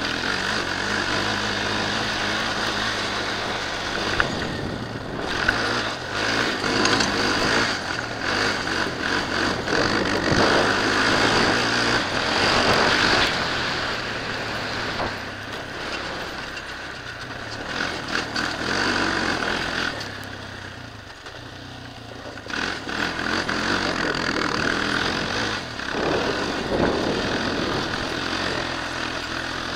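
Suzuki LTZ400 quad's single-cylinder four-stroke engine running under way, revving up and down with the throttle as it is ridden over a dirt track, easing off briefly about two-thirds of the way through.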